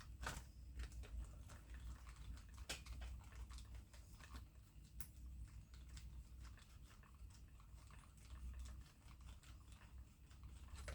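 Faint, scattered clicks and small taps of hand work on a plastic RC car chassis, with screws and a screwdriver being handled, over a steady low hum.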